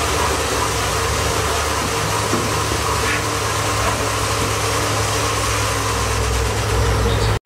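Road-bike tyres spinning on free-standing training rollers under pedalling riders, a steady low hum with a whir above it. It cuts off suddenly near the end.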